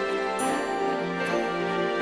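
Background music: a Christmas track with sustained notes and a light, regular beat.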